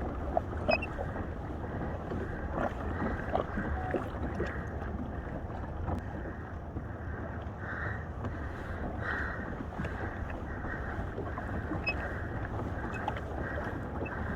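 Wind rumbling on the microphone over water sloshing against a fishing kayak's hull, with a few small knocks.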